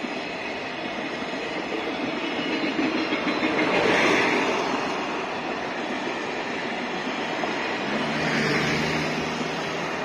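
Container wagons of the Fukuyama Rail Express freight train rolling past: a steady rumble of steel wheels on rail that swells about four seconds in and again near the end.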